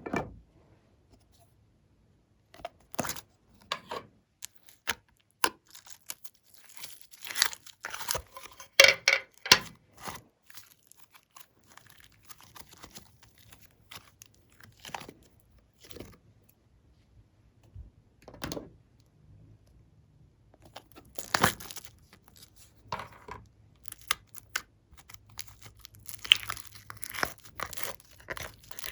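Slime and the things being mixed into it handled by hand: irregular sticky clicks, crackles and crinkles, thicker in two stretches.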